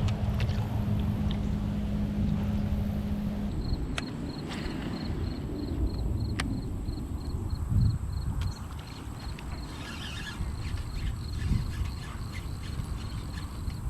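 A steady low hum that stops about three and a half seconds in. After it, an insect chirps evenly, about twice a second, over low rumbling handling noise and a few scattered clicks.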